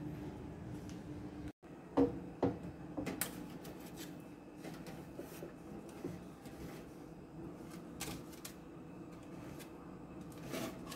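Scattered clicks and light metallic knocks of an aluminium foil baking tray and wire oven racks being handled as the tray goes into the oven, loudest about two to three seconds in, again about eight seconds in and near the end. A low steady hum is heard for the first second and a half.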